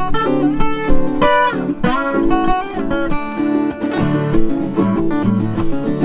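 Two Brazilian violas caipiras played together in a pagode rhythm, with quick plucked runs over strummed chords and a few bent notes.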